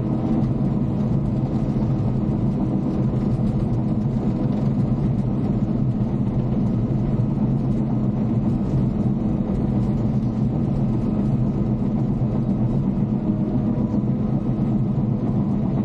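Caterpillar D5 bulldozer's diesel engine running steadily at working speed during grading.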